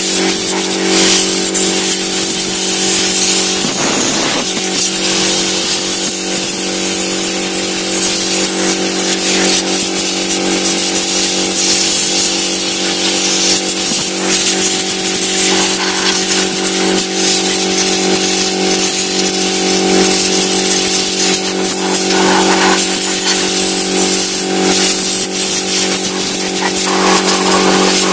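Air compressor motor running steadily with a hum, while compressed air hisses as it blows dust out of a desktop computer case.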